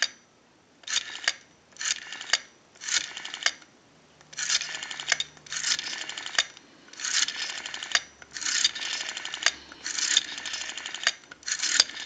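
Western Electric rotary dial being dialed: the finger wheel is pulled round and released again and again, each release spinning back with a rapid run of clicks as it pulses out a digit. About ten digits go by at roughly one a second, the later ones longer.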